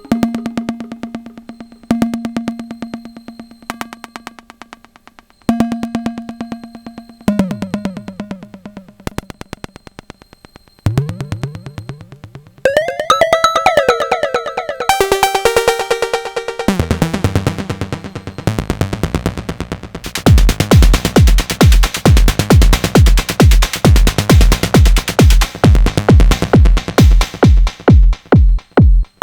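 Sonic Potions LXR-02 digital drum machine playing improvised techno. Fast runs of pitched, synth-like percussion notes shift and climb in pitch through the first two-thirds. About two-thirds of the way in, a steady four-on-the-floor kick drum drops in at about two beats a second, with dense hi-hats over it.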